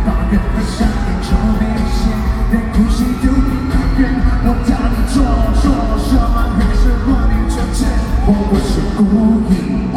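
Live pop music from a band with a steady beat, loud throughout.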